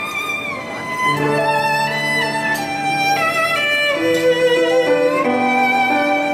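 Violin played with the bow: a slow melody of held notes with vibrato, sliding up into a high note at the start and changing note about once a second.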